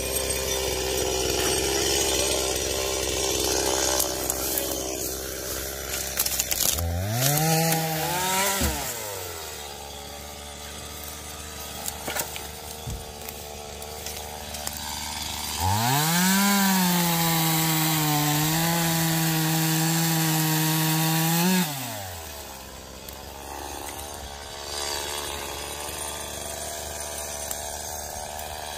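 Two-stroke chainsaw idling, revved up and down once briefly, then held at full throttle for about six seconds, cutting through branches, before dropping back.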